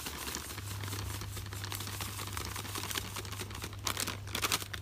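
Granulated sugar pouring from a plastic bag onto cornmeal in a bowl: a fine, rapid patter of grains, denser near the end.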